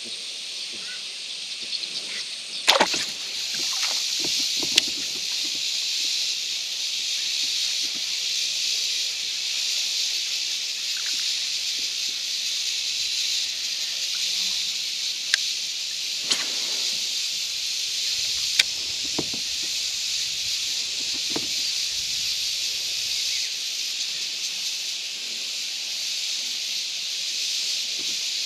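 Steady high-pitched drone of insects in the riverside trees, running without a break. A few sharp knocks cut through it, the loudest about three seconds in.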